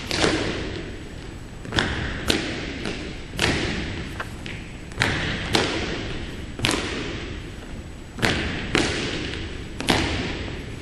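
Air cadets' drill boots striking a hard gymnasium floor as they march and stamp, about ten sharp thuds, often in pairs about half a second apart, each echoing around the hall.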